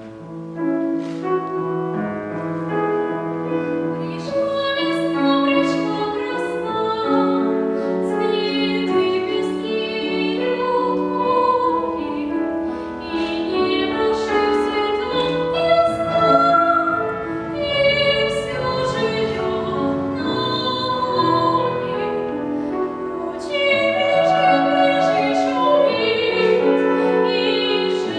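A young singer's classical, operatic-style voice with piano accompaniment. The music starts suddenly out of quiet and runs in sustained, changing notes.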